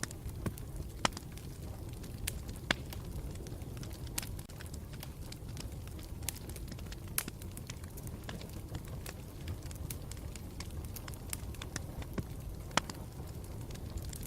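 Campfire burning with a low, steady rumble and irregular crackles and pops from the burning wood, several of them sharp and louder than the rest.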